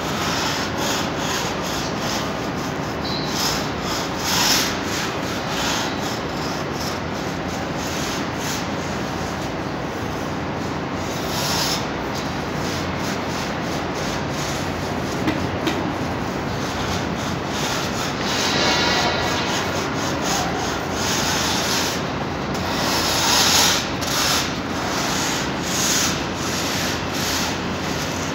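Paint rollers on long extension poles rolling back and forth across a ceiling: a repeated rubbing swish over a steady background noise, swelling louder now and then.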